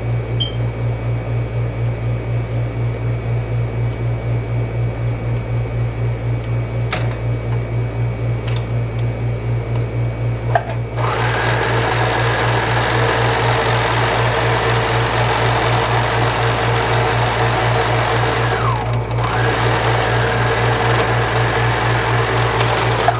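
Overlock serger (merrow) running as it overcasts the edge of a freshly sewn skirt seam. It starts about halfway in, stops briefly near the end and then runs again. A steady, pulsing low hum sits under it throughout, with a few faint clicks in the first half.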